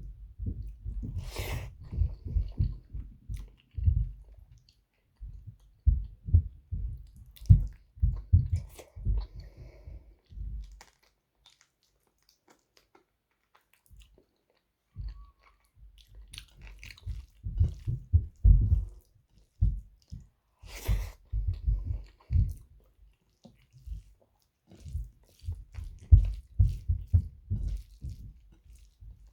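Close-miked mouth sounds of a person chewing mutton curry and rice: rapid, wet chewing in runs, with a pause of a few seconds in the middle. Two brief sharper noises, about a second and a half in and again after about twenty seconds.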